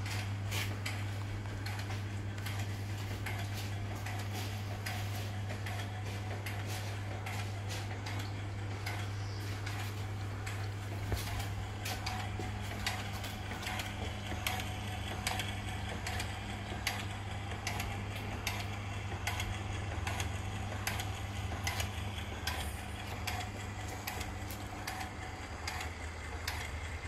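Electric water pumps of a borehole treatment plant running with a steady low hum, with irregular small clicks and ticks scattered over it.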